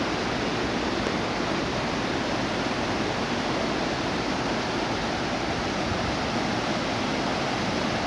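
Fast-flowing floodwater of a swollen river rushing and churning past bridge piers: a steady, even rush of turbulent water.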